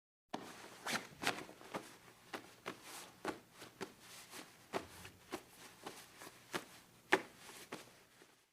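A series of irregular light taps, about two a second, over a faint hiss; the sound starts and stops abruptly.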